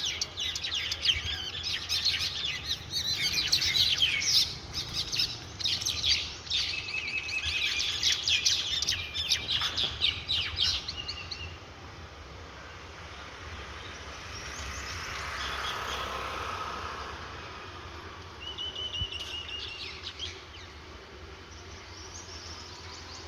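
Small birds fighting, giving dense, rapid high chirps and squawks for the first half, then falling quieter with a few short chirp runs near the end. A swelling and fading rush of noise comes in about two-thirds of the way through.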